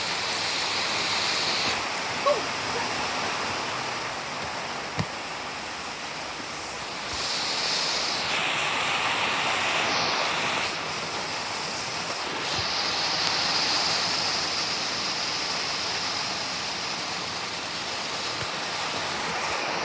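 Heavy rain pouring down and drumming on a metal roof, swelling and easing several times as the wind gusts.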